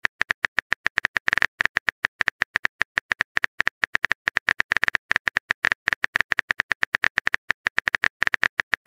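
Keyboard typing sound effect of a texting app: a quick, even run of short clicks, about eight to ten a second, each with a slight high pitch, as a message is typed out key by key.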